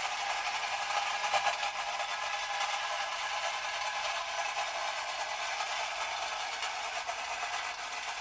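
Clockwork wind-up motor of a tin-litho Marx Moon Scout toy helicopter running: a steady whirring rattle of spring-driven gears and tin body as the toy runs on its wind.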